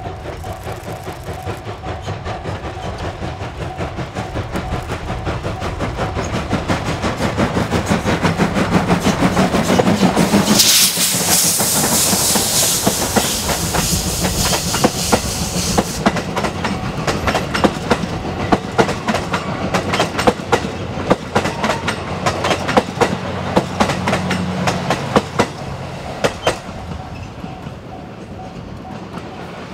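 Steam locomotive D51 200 and its train passing, growing louder. About a third of the way in a loud hiss lasts several seconds. The coaches' wheels then clatter rhythmically over the rail joints and fade.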